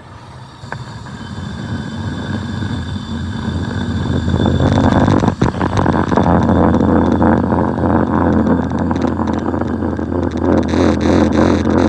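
Lathe running with a steady motor hum. It builds up over the first few seconds and turns into loud, rough machining noise from about halfway, with rapid clattering near the end.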